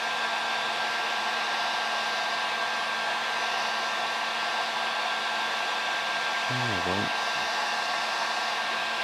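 Hot-air blower running steadily, a constant rushing hiss with a fixed whine, as it shrinks heat-shrink tubing over wire joints.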